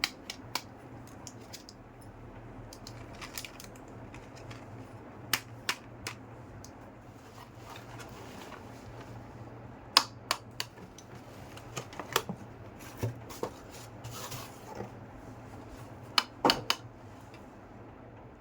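Small toy kitchen pieces being handled and set down: scattered light clicks and taps, with a brief rustle of packaging partway through, over a faint steady hum.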